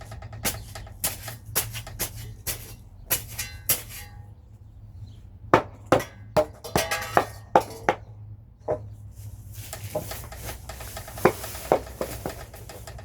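A series of sharp metal clanks and knocks from hand tools, some ringing briefly, while concrete is being readied for mixing. Near the end a rushing, scraping noise takes over, with a few more knocks.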